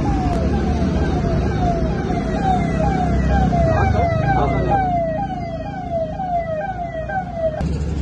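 An electronic siren-like warning tone: short falling chirps repeating about three times a second, cutting off suddenly near the end. Steady road-traffic rumble runs underneath.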